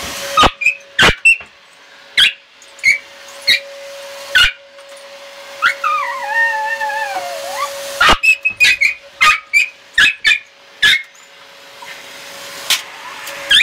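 A small dog barking repeatedly in sharp yaps at a vacuum cleaner: a burst of barks in the first few seconds, then a faster run from about eight seconds in. Around the middle comes one long falling whine, over a steady hum that stops about eight seconds in.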